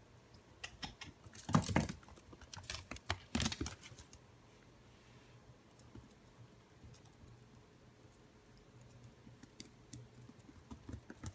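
Toy Fox Terrier puppy's claws clicking and scrabbling on a hardwood floor as it runs and pounces. There are quick bursts of taps in the first few seconds, then scattered ticks, with a few more near the end.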